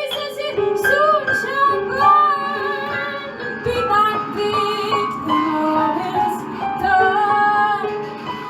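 Female voices singing without words, with wavering vibrato, over held sustained notes.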